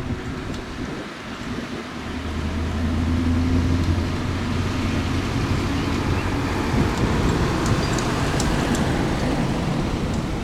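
Heavy diesel road-building machine running close by, with a steady low hum that grows louder about two seconds in.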